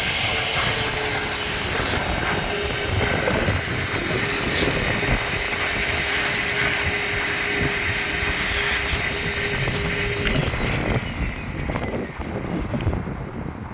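Vacuum cleaner running steadily with a hum, sucking up shattered sunroof glass. It is switched off about eleven seconds in and winds down.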